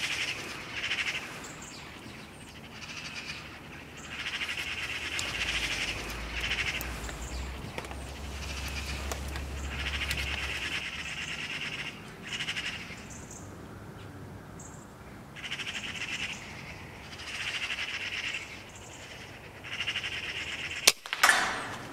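Magpies chattering in a series of harsh, rattling calls, then a single sharp air rifle shot near the end.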